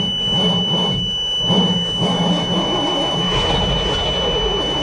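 Dump truck's carbureted gasoline engine being cranked over by the starter in the cold without catching, an uneven low pulsing under a steady high-pitched tone. The owner takes the failure to start for fouled plugs.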